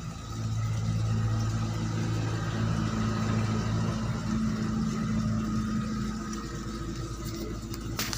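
A steady low engine hum that swells about half a second in and fades away after about six seconds, with a short click near the end.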